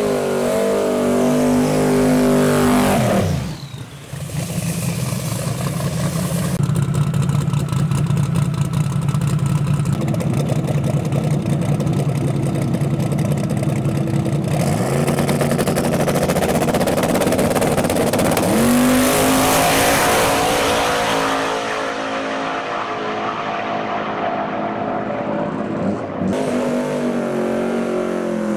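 Twin-turbo 427 cubic-inch LS-based V8 drag engine on methanol revving high, dropping with a falling note after about three seconds into a steady, rumbling low-speed run. It climbs back to high revs about two-thirds of the way through, and rises again near the end.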